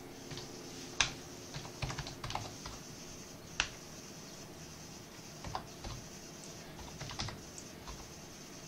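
Keys of a wireless desktop PC keyboard being typed on: light clicks in short, irregular bursts with pauses between, one key hit harder about three and a half seconds in.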